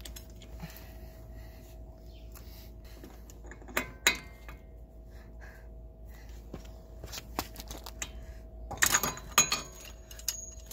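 Breaker bar and 36 mm axle-nut socket clicking and clinking against the axle nut as it is tightened on the truck's front hub. A couple of sharp metal clicks come about four seconds in, and a louder cluster of clinks near the end as the socket comes off the nut.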